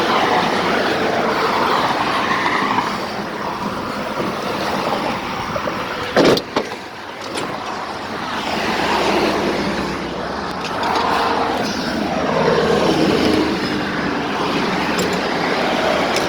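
Interstate traffic rushing past, swelling and fading as vehicles go by, with one loud clunk about six seconds in.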